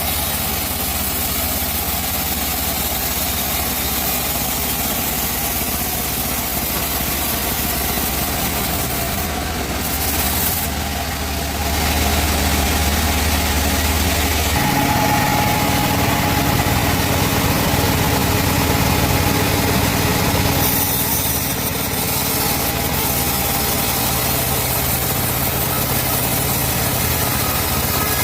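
Band sawmill (gergaji selendang) running steadily while sawing teak. Its low running note shifts about 14 seconds in and changes again about 21 seconds in.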